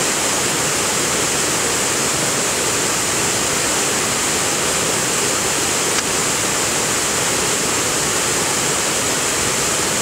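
Waterfall pouring down a rock face into a small plunge pool: a steady, even rush of falling water.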